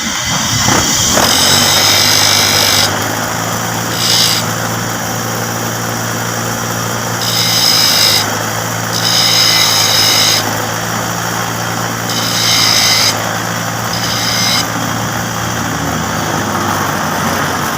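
Six bouts of abrasive grinding of about half a second to a second and a half each, as a new starter-motor carbon brush is trimmed down to fit its holder, over a steady low machine hum.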